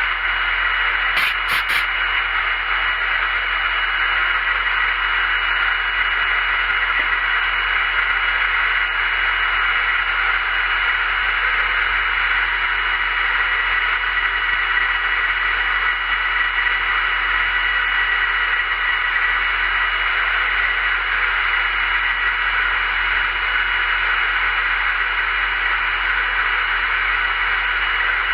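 Small milling machine running steadily, a constant noisy whine with a few brief clicks about a second in.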